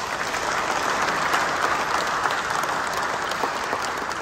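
Congregation applauding: many hands clapping together in a dense patter, loudest about a second in and easing off toward the end.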